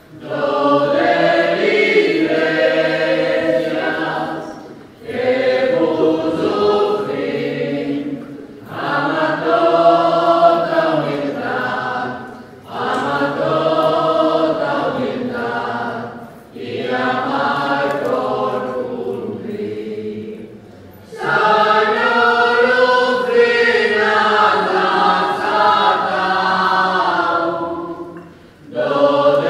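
Choir singing the offertory hymn in phrases of about four seconds, with short breaks for breath between them.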